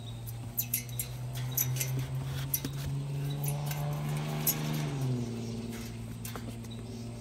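A steady low motor hum that drops slightly in pitch about five seconds in, with scattered clicks and light rattles from puppies pawing and mouthing a wire-mesh fence.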